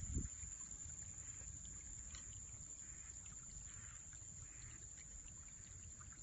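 Outdoor field sound of wind rumbling on the microphone, with soft rustling steps through grass along a canal bank. A steady high-pitched whine runs underneath. The rumble is strongest about the first second.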